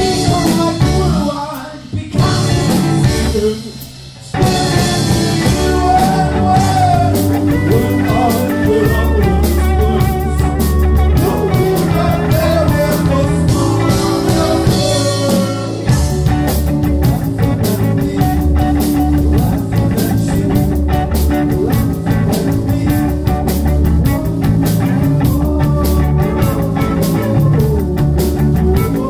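Live rock band playing: electric guitar, drum kit and synthesizer keyboards, with sung vocals. The music cuts out briefly a few times in the first four seconds, then the full band comes in and plays on steadily.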